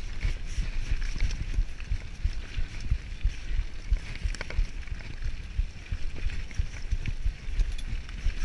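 Mountain bike riding fast down a rocky trail: tyres rolling over stone and gravel and the bike rattling over bumps, with an uneven low rumble of wind buffeting the microphone and scattered sharp knocks.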